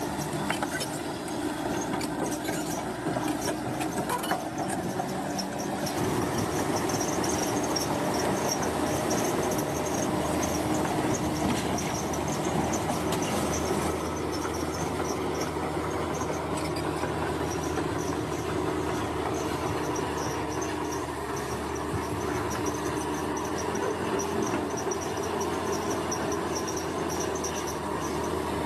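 Bulldozer running steadily while pushing soil: an engine drone mixed with the grinding of its tracks, and a steady high whine over the top.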